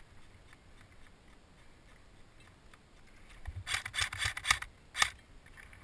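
Quiet, then a close burst of rustling and scraping lasting about a second, followed by a single sharp click about five seconds in.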